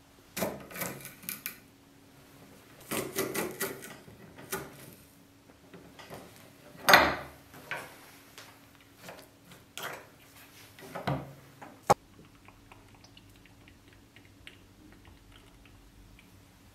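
Garlic being broken into cloves and pressed through a metal garlic press: irregular bursts of crackling and clicking, loudest about seven seconds in, ending with one sharp click about twelve seconds in. After that there are only faint ticks.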